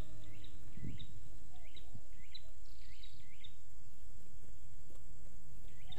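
Outdoor background with a steady low rumble, and a bird repeating a short rising chirp about twice a second that dies away about halfway through.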